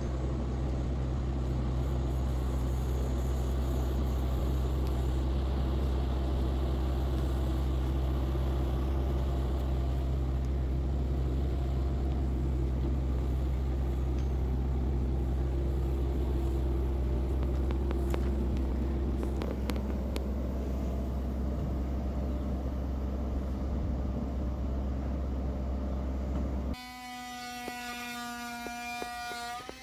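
Backhoe's diesel engine running steadily with a low rumble while the rainwater tanks are set in place; it cuts off abruptly near the end.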